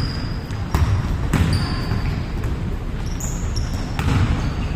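Basketball bouncing on an indoor court in a few separate thuds, with short high squeaks of sneakers on the floor in between.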